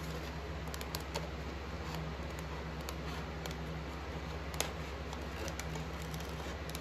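Scissors snipping through a rolled paper template: short, sharp, irregular snips over a steady low hum.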